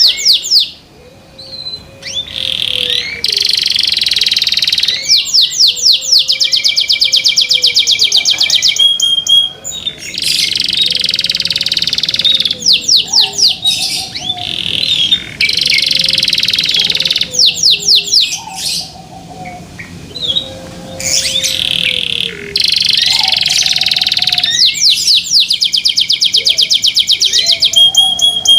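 Domestic canary singing loud, long phrases of fast rolling trills and repeated high notes, broken by short pauses every few seconds.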